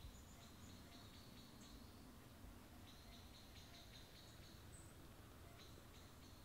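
Faint high-pitched chirping from forest wildlife, in quick runs of short ticks that start and stop several times, over a low background rumble.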